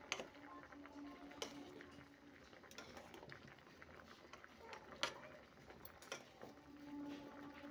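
A spoon stirring chunks of radish in a steel pot of boiling water, knocking against the pot a handful of times.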